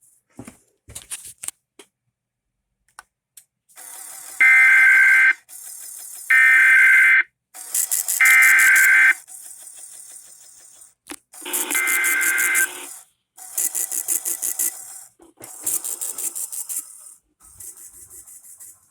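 NOAA Weather Radio EAS SAME digital header: three screeching data bursts of about a second each, a second apart, each a rapid warble between two tones over a hiss. These mark the start of an alert, here a Required Weekly Test. Further shorter buzzing data bursts follow in the second half.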